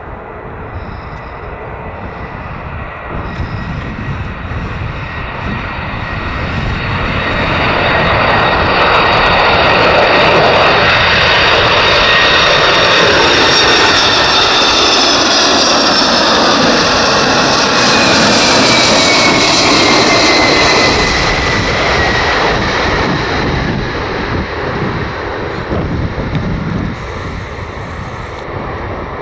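Boeing 747 Dreamlifter's four jet engines passing low on landing. The noise builds to a loud peak, with whining tones that fall in pitch as the aircraft goes by, then eases off.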